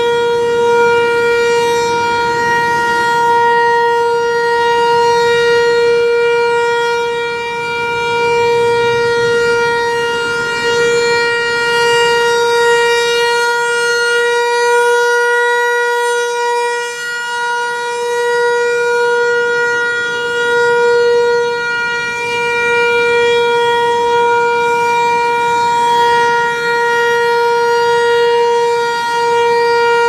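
Federal Signal Equinox electronic outdoor warning siren sounding a steady, unchanging tone for a test while its horn rotates, the loudness swelling and dipping slightly as it turns.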